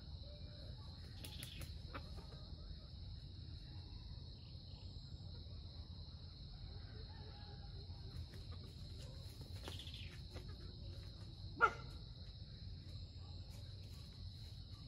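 Steady, high-pitched insect chorus droning over a low rumble. One short, sharp sound comes about two-thirds of the way through and is the loudest thing heard.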